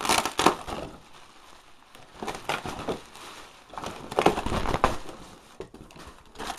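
Cardboard packing being handled and crumpled: irregular crunching, rustling bursts at the start, about two seconds in, and loudest around four to five seconds in.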